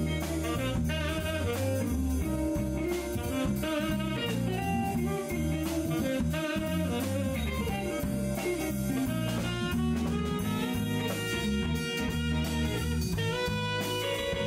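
Live band playing: a saxophone melody over electric bass, keyboard, drum kit and electric guitar.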